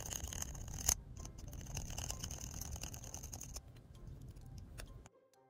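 A round needle file rasping inside a hole in a plastic model part, enlarging a hole too small for its pin. There is a sharp click about a second in. The filing stops about three and a half seconds in, giving way to light clicks of plastic parts being handled.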